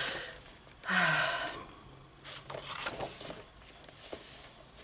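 Paper pages of a colouring book being turned, rustling in a few short swishes, the loudest about a second in.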